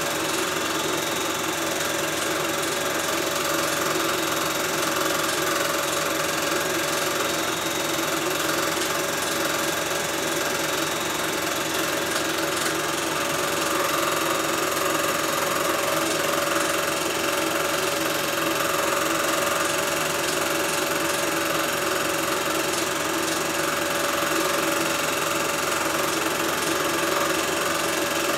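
A film projector running, giving a steady mechanical whirr and clatter that does not change.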